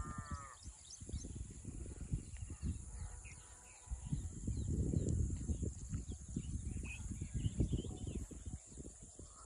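Outdoor ambience: wind buffeting the microphone in gusts, a steady high insect drone, and scattered bird chirps.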